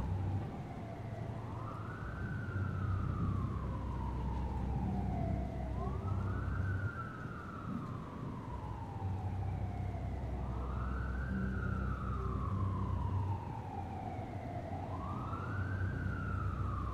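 A wailing emergency-vehicle siren: each cycle rises quickly and then falls slowly, four times, about four and a half seconds apart, over a steady low rumble.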